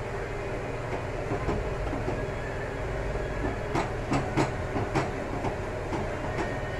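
Metal spoon clinking and scraping against a steel pot while stirring thickening pumpkin kheer, a cluster of sharp clinks about halfway through, over a steady low rumble.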